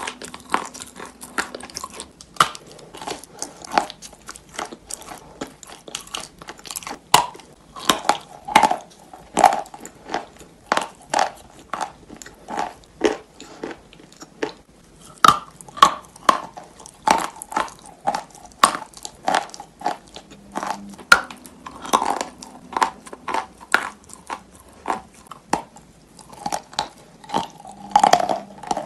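A block of Vasilpolye chalk coated in wet chalk paste being bitten and chewed: many sharp crunches, several a second, with softer wet chewing between them.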